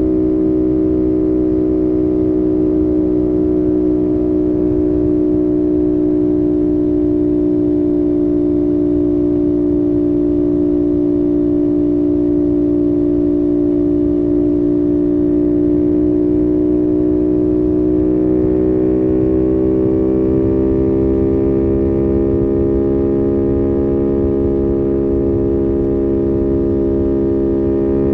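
CFMOTO 450SS parallel-twin engine pulling steadily at expressway cruise, with wind rumble underneath. Its pitch eases down slightly, then rises about two-thirds of the way through as the bike accelerates, and holds steady at the higher speed.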